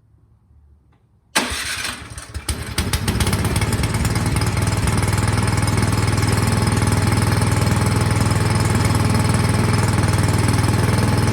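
Craftsman 24-inch snowblower's engine starting about a second and a half in: a short, uneven burst as it turns over and catches, then settling into a loud, steady run. It starts readily, its carburetor freshly cleaned after fuel left sitting had kept it from starting.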